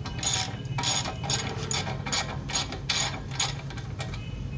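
Ratchet wrench being worked back and forth in quick short strokes, about three a second, loosening a fastener on a car's front hub assembly. The strokes stop shortly before the end.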